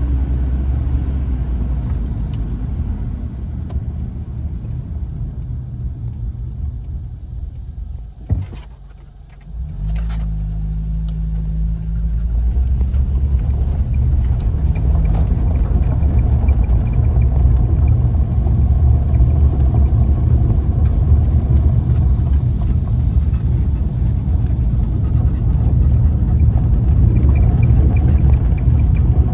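Steady low rumble of a car driving, heard from inside. It drops out briefly about eight seconds in, with a click on either side, then comes back a little louder.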